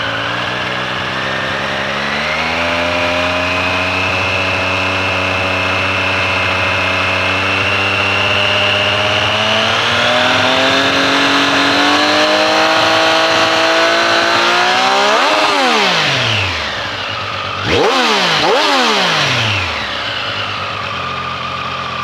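Triumph Street Triple 765 RS's 765 cc inline three-cylinder engine revved in neutral. It is held at raised revs that climb in steps for about fifteen seconds, then drops back. Two quick throttle blips follow, and it settles to idle.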